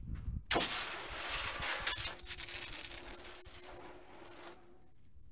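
A hissing spray that starts suddenly about half a second in and runs for about four seconds, strongest at first and easing off before it cuts off, with a faint steady tone under its second half.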